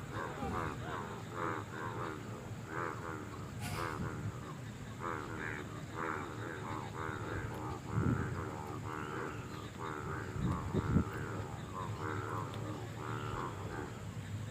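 A chorus of frogs croaking: many short, repeated calls overlapping continuously through rain-season breeding calls of male frogs. A sharp click about four seconds in and low thumps around eight and eleven seconds in stand out above the chorus.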